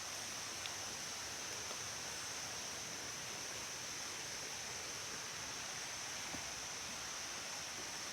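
Steady woodland ambience: an even hiss with a constant high, thin drone and a faint tick or two.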